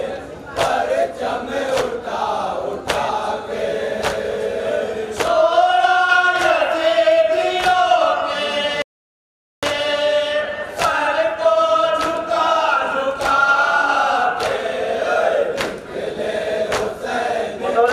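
A group of men chanting a nauha (Shia Muharram lament) in unison through a microphone, over sharp rhythmic slaps about twice a second, the chest-beating of matam. The sound cuts out completely for under a second about nine seconds in.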